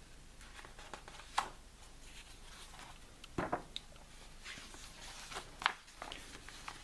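A few sharp clicks with faint handling noises between them.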